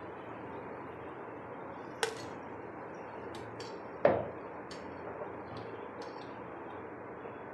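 Hot oil sizzling steadily as onion fritters deep-fry in a steel kadai, while they are lifted out half-fried with a steel slotted spoon. The spoon knocks sharply on the pan twice, about two and four seconds in, the second knock the louder, with a few fainter ticks between.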